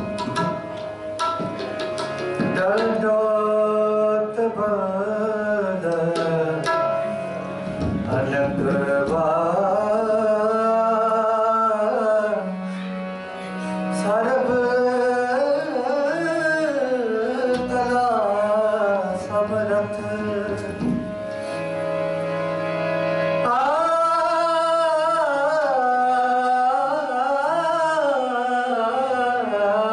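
Sikh kirtan: a man singing a devotional hymn to his own harmonium accompaniment, with tabla drums keeping the beat.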